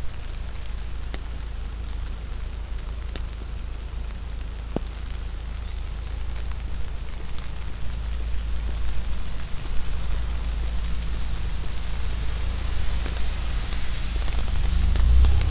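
Steady rain hiss on a wet city street over a low traffic rumble, with a few isolated sharp ticks. Near the end a car grows louder as it approaches, tyres hissing on the wet road.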